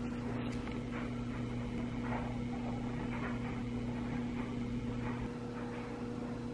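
A steady low hum of a few fixed tones, with faint scattered rustles and light taps.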